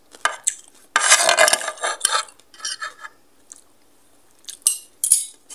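Metal spoon and fork scraping and clinking on a plate, scooping up the last grains of rice. A couple of clicks, then a dense scrape lasting about a second, then scattered lighter clinks and scrapes.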